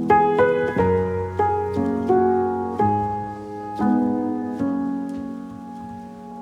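Background piano music: a gentle melody of struck notes over sustained chords, each note fading after it is played.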